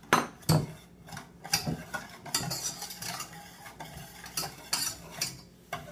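A whisk stirring teriyaki sauce in a pan on the stove, with irregular clinks and scrapes against the pan as the sauce thickens.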